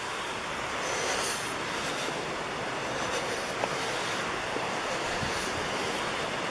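Steady rushing outdoor noise, even from low to high pitch, with a few faint clicks.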